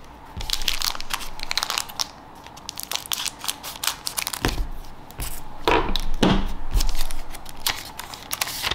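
Foil wrapper of a trading-card booster pack crinkling as it is handled, cut with scissors and pulled open: a run of short crisp crackles, with a few louder ones in the second half.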